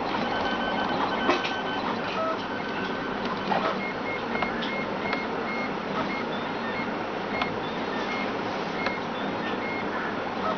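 FDM 3D printer at work: its stepper motors run with short whining tones that change pitch as the hot end moves, over a steady hum. From about four seconds in, a short high tone repeats about three times a second as the head shuttles back and forth.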